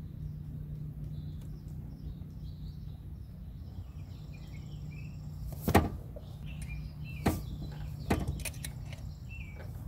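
A few sharp metallic clicks and knocks in the second half as hydraulic hose fittings are handled and threaded onto a convertible-top pump, over a steady low hum, with faint bird chirps in the first half.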